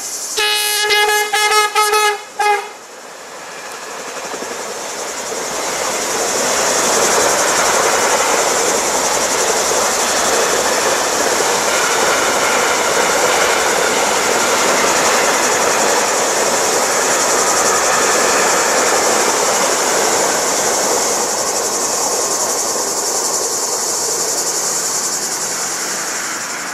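Electric locomotive's horn sounding a quick series of short blasts, then a long container freight train rolling past with steady wheel-on-rail noise that builds over a few seconds, holds, and fades near the end.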